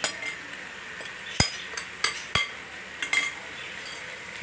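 Marinated chicken dropping into hot ghee in a wok and starting to sizzle, with a series of sharp knocks and clinks as a glass bowl and wooden spatula strike the wok; the loudest knocks come about one and a half and two and a half seconds in.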